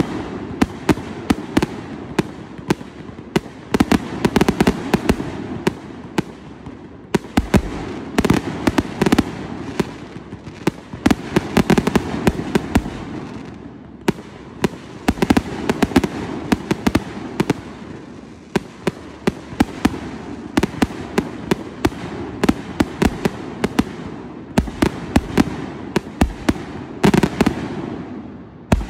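Fireworks display going off: a rapid string of sharp bangs and crackling, several reports a second, swelling into louder clusters every few seconds.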